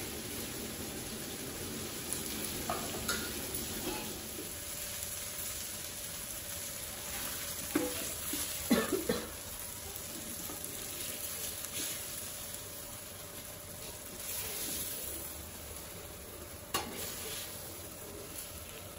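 Pomfret steaks sizzling in shallow oil in a flat metal pan, with a metal spatula scraping and knocking against the pan now and then, loudest about halfway through as pieces are lifted out.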